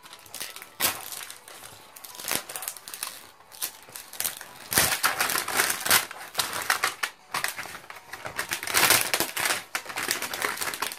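Plastic wrapping crinkling and rustling as it is pulled and crumpled off a large lollipop-shaped toy package. It comes in irregular bouts, loudest about five and nine seconds in.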